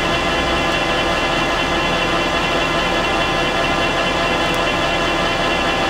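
Metal lathe running steadily while a ceramic cutting insert turns down the outer diameter of a hardened-steel double-row bearing. The sound is a steady machine noise with many held tones.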